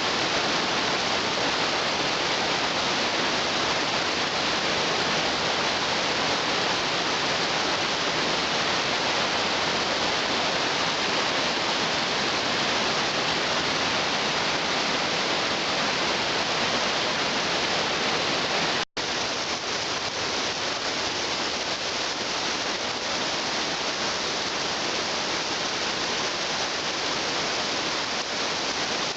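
Waterfall rushing, a steady full hiss of falling water. About two-thirds of the way through it drops out for an instant and comes back a little softer.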